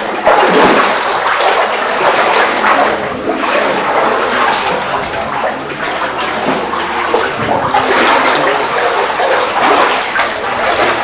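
Seawater washing and surging among the boulders of a sea grotto: a steady rushing wash.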